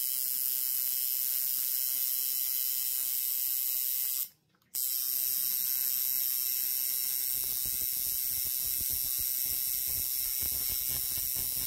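Coil tattoo machine buzzing steadily as the needle runs over skin. The buzz cuts out briefly about four seconds in, then carries on.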